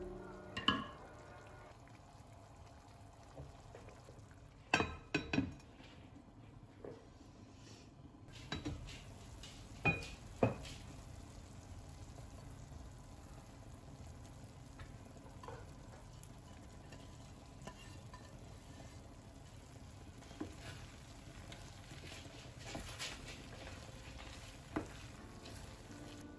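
Kitchen cooking sounds: utensils knocking and clinking against a pan and dishes every few seconds, over a faint steady hiss.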